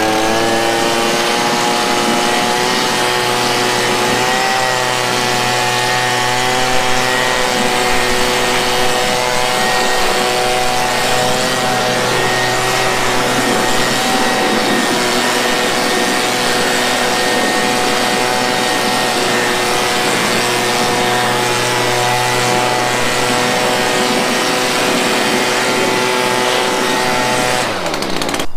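Stihl handheld leaf blower running at full speed, a steady whine over a low hum, blowing debris off a lawn mower; the pitch drops as it winds down near the end.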